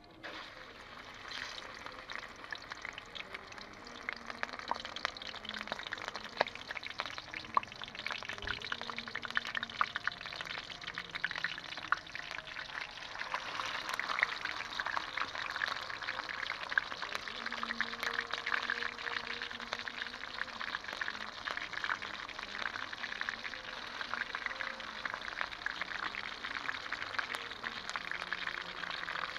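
Pork frying in hot oil, sizzling and crackling with many small pops; the sizzle grows louder over the first dozen seconds or so and then stays steady.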